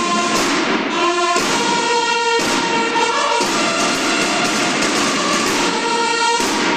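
Drum and bugle corps playing, with bugles sounding a series of long held notes over the steady beat of snare drums. The notes change about once a second, then one note is held for about three seconds.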